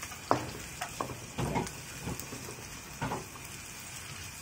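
Diced yam, mushrooms and dried prawns frying in a wok with a steady light sizzle. A wooden spatula scrapes and knocks against the metal wok several times as the food is stirred.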